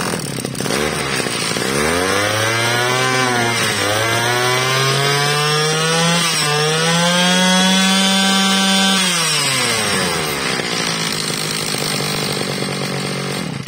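Kawasaki TG28 28cc two-stroke brush cutter engine running, its throttle worked by hand at the carburettor: the pitch climbs to a high rev about two seconds in, dips briefly twice, holds high, then drops back to idle about nine seconds in.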